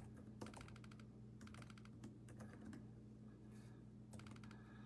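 Faint typing on a computer keyboard in several short bursts of rapid key clicks, over a steady low hum.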